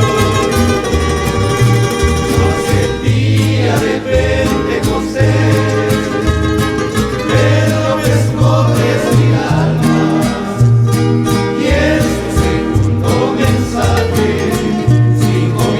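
A rondalla playing: guitars strummed in a steady rhythm under a plucked-string melody and bass line, with a group of voices singing from about three seconds in.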